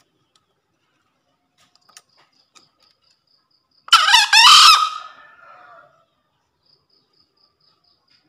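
Green junglefowl rooster crowing once, about four seconds in: a shrill call about a second long that trails off. Faint, regular insect chirps, a few a second, come before and after the crow.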